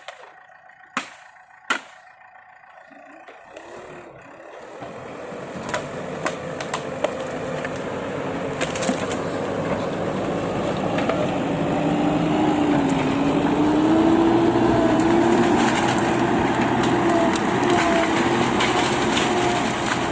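A few sharp knocks, then an excavator's engine growing louder as the machine works, a steady drone that wavers in pitch, with scattered sharp cracks.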